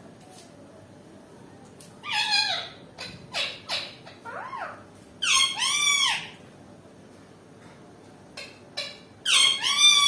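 Indian ringneck parakeet giving repeated harsh, high screeching calls in bursts, about two seconds in, again around five to six seconds, and once more near the end: the calls of an angry, agitated parrot.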